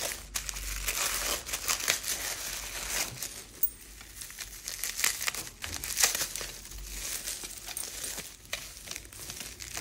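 Tissue paper and bubble wrap crinkling and rustling as a small package is unwrapped by hand, with irregular sharp crackles.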